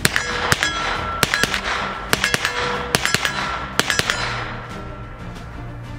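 Ruger PC9 carbine being fired in 9mm: about ten shots in quick succession over some four seconds, several coming in pairs, each trailing off in an echo. Then the shooting stops.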